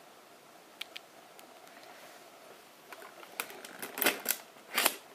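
Plastic clicks and clacks from the Sony Mavica FD90's built-in 3.5-inch floppy drive as the disk is ejected and handled. A few faint ticks come first, then a run of louder clacks in the last second and a half.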